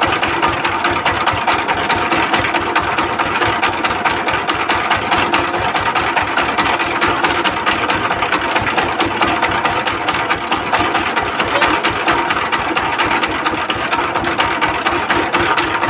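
1110 single-cylinder diesel engine (power-tiller type) running steadily with a rapid, even beat. The engine has just had its gear timing set without timing marks and runs well: the mechanic says it sounds very good, with no problem.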